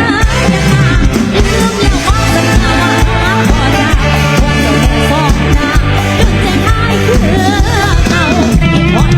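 Live mor lam sing band music with a steady drum beat, a bass line and a bending, ornamented lead melody.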